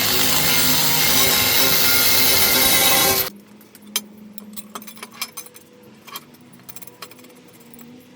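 A power tool running loudly, shutting off suddenly about three seconds in, followed by a few light taps and clinks as parts are handled over a low hum.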